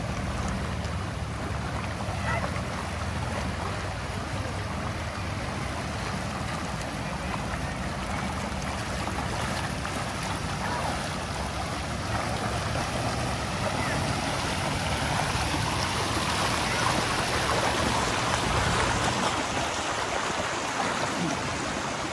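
Shallow, fast river water rushing over a rocky riffle, with splashing from legs wading through the current. The rush grows louder toward the end.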